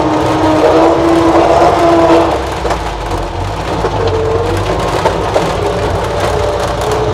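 Series One Land Rover heard from inside the cab while driving slowly off-road: engine and drivetrain running with a steady whine that shifts in pitch as the speed changes, over a low rumble, with a few short knocks and rattles from the body.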